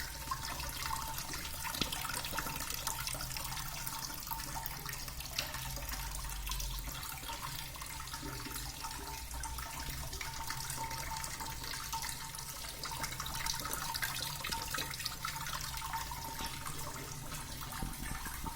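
Water from a small homemade fountain splashing and trickling steadily, with many small drops pattering.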